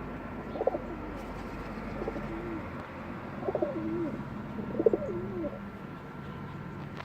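A bird calling four times in short, low, gliding phrases about a second and a half apart, over a steady hum.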